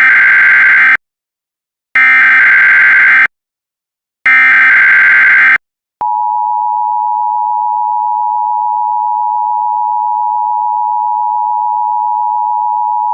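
Emergency Alert System header: three short bursts of SAME digital data, each about a second long with about a second between them. From about halfway through, the steady two-tone EAS attention signal follows.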